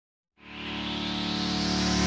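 Intro music fading in: a sustained chord starts about a third of a second in and swells steadily louder.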